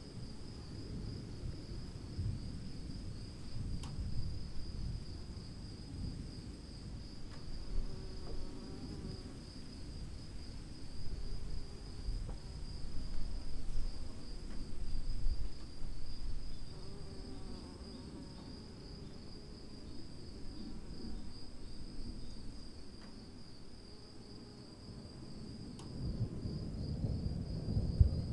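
Steady, shrill chorus of insects, a fine pulsing trill, over uneven low-pitched noise that swells a little after the middle and again near the end. A faint low animal call is heard about eight seconds in and again about seventeen seconds in.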